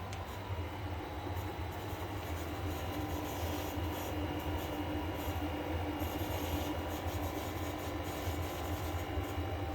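Electrolux WP71-265WT portable air conditioner running with a steady low hum and clashing higher tones: the dissonant noise the owner regards as a fault, present on a replacement unit too, which Electrolux calls normal. One of the tones grows stronger from about three seconds in and fades again about four seconds later.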